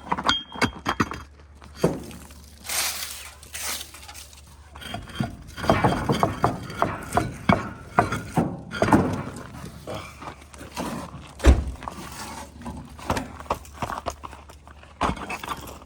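Metal hand tools and parts clinking and knocking during work on a truck wheel: a series of irregular sharp strikes, with one heavier thump about two-thirds of the way through.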